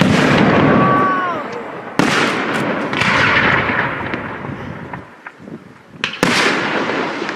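Fireworks display: aerial shells bursting with sharp bangs at the start, about two seconds in, and again about six seconds in, each followed by a fading crackle. A short whistle glides downward in pitch near the first second.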